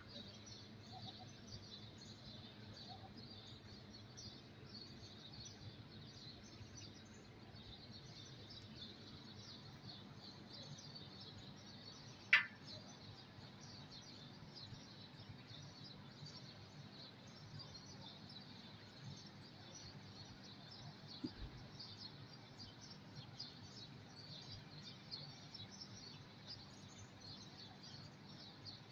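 Faint outdoor background with steady high-pitched chirping throughout. One short, sharp, high squeak stands out about twelve seconds in, and a soft knock comes near twenty-one seconds.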